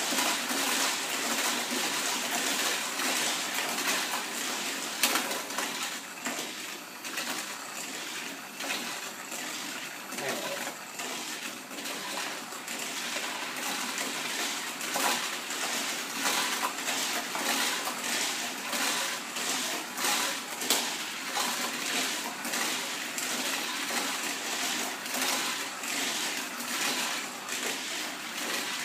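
Several Hot Wheels Sizzlers, small battery-powered electric toy cars, running laps around a plastic oval track: a steady whirring hiss from their motors and wheels, broken by frequent clicks and rattles.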